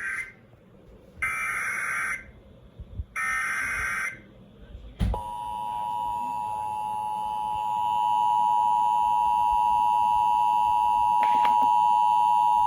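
Emergency Alert System SAME header: short bursts of buzzy digital data tones, about a second each, followed by the weather-radio 1050 Hz warning alarm tone, one steady high beep held for about eight seconds. Together they open a new alert, here a flash flood warning.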